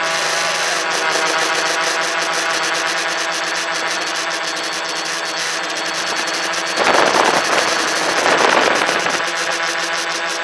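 Tricopter's electric motors and propellers buzzing steadily in flight, heard from on board. About seven seconds in, a louder rushing noise swells for roughly two seconds.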